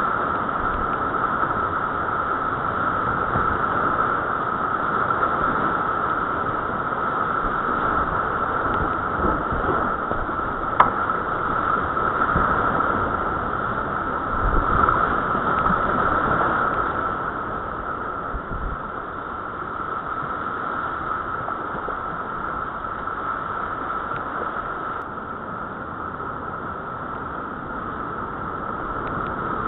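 Rushing whitewater of a muddy creek rapid heard from a kayak on the water: a steady, loud rush that eases a little in the second half, with one sharp click about eleven seconds in.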